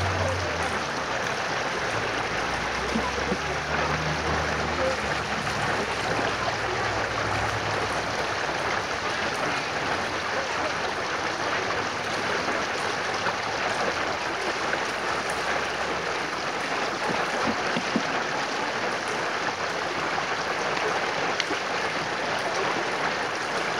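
Shallow rocky stream rushing and splashing over stones in small rapids: a steady, even rush of water.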